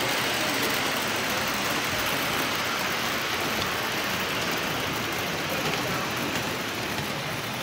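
Toy trains running on a model railway layout, giving a steady, even rumble and hiss of wheels on track.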